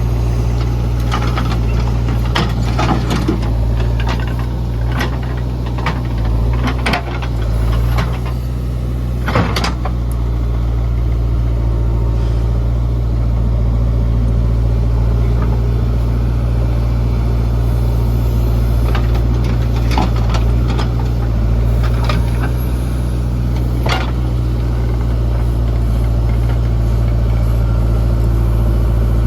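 JCB 3DX backhoe loader's diesel engine running steadily at a low, even pitch, with scattered sharp clanks and knocks from the machine working, the loudest about nine seconds in.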